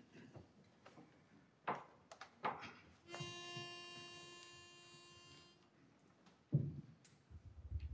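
A pitch pipe is blown once, sounding a single steady reedy note for about two and a half seconds to give a men's barbershop chorus its starting pitch. A few soft knocks come before it, and a louder thump follows near the end.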